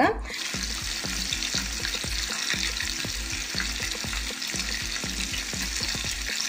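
Masala-coated anchovies shallow-frying in hot oil: a steady sizzling hiss dotted with many small crackles.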